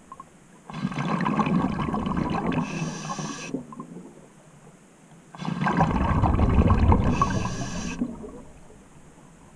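Scuba diver breathing out through the regulator: two long bursts of bubbling exhaust, about a second in and again past the middle, with quieter inhale pauses between, heard underwater.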